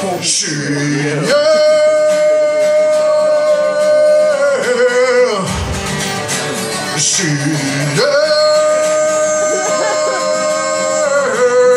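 Live horror-punk song: a man's voice holds two long, high wailing notes of about three seconds each, wavering at their ends, over guitar.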